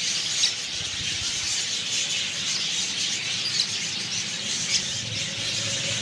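Many small cage birds chirping and squawking together in a continuous high chatter, with a few sharper calls standing out above it.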